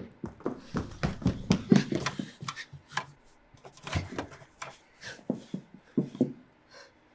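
A quick, irregular run of knocks and thumps, densest and loudest in the first two seconds, then thinning out to scattered taps.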